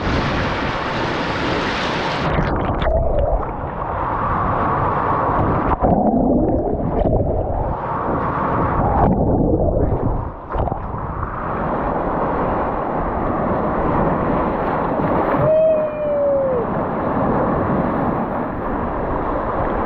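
Lake Superior waves washing over a camera at the waterline: water sloshing, rushing and gurgling around the microphone as it dips in and out of the water, the sound muffled for most of the time. Near the end, waves break and wash over the shoreline rock.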